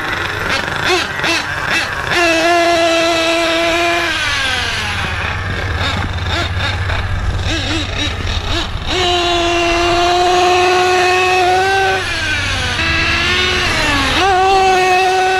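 Force 32 nitro engine of a Losi 8IGHT 1/8-scale truggy revving on warm-up runs. It holds steady high revs for a few seconds at a time, then eases off and climbs again twice. The engine is running rich and loud.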